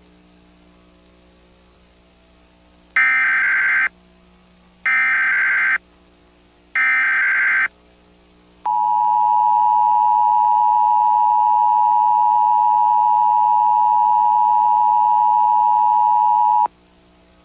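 Emergency Alert System test tones: about three seconds in, three one-second bursts of SAME header data tones about a second apart, followed by the EAS two-tone attention signal, held steady for about eight seconds and then cut off sharply.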